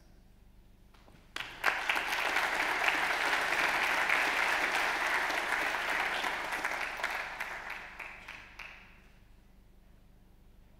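Audience applauding: the clapping breaks out suddenly about a second and a half in, holds steady, then dies away and has stopped by about nine seconds in.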